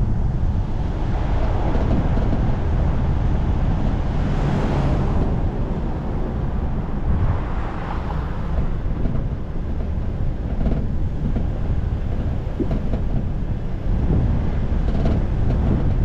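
A car driving, with steady wind rumble on the microphone over road and traffic noise, swelling briefly twice, about four and seven seconds in.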